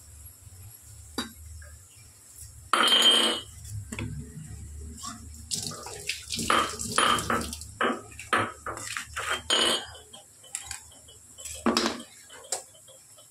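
Kitchen tap water splashing briefly into a stainless-steel sink about three seconds in. This is followed by a run of sharp clinks and clatters of a steel bowl and knife being handled at the sink.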